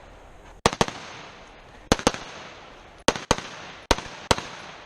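Rifle shots fired in quick succession on a match stage: about eight sharp cracks, mostly in quick pairs.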